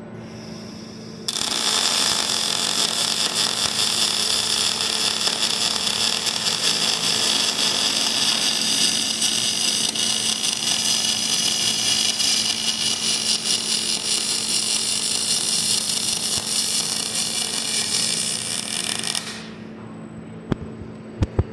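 KUKA robot's MIG welding torch strikes an arc on a steel truss about a second in and runs a continuous weld, a loud steady crackling, for about 18 seconds before the arc cuts off suddenly. A low steady hum runs underneath throughout, and a few sharp clicks come near the end.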